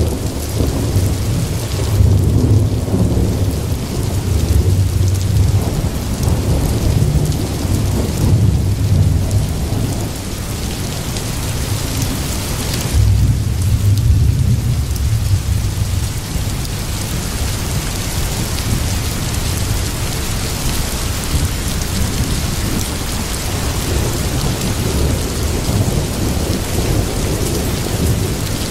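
Rain falling steadily, with low thunder rumbles rolling in and out several times, strongest in the first half.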